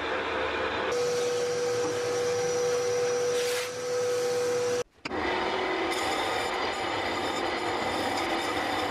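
Metal lathe running and cutting a large metal tube: a steady scraping of the tool on the metal over the machine's hum, with a steady whine for a few seconds. The sound cuts out for a moment about five seconds in, then the lathe carries on.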